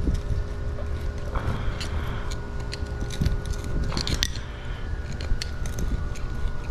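Flathead screwdrivers clicking and scraping against pavers as a border paver is pried out of its joints: a run of small sharp clicks with two longer scrapes, over a steady background hum.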